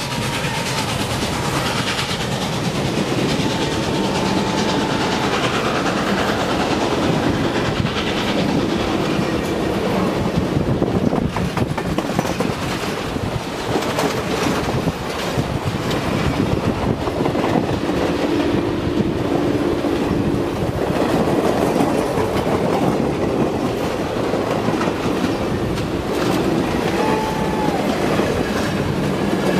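Steam excursion train's tender and passenger cars rolling past at close range, a steady clickety-clack of wheels over rail joints. A few short high tones rise and fall near the start, about four seconds in, and near the end.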